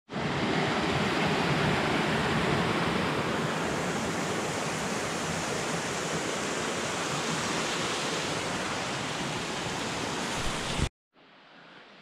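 Small waterfall pouring over rocks into a pool: a steady rush of falling water that cuts off suddenly near the end, leaving quieter forest ambience.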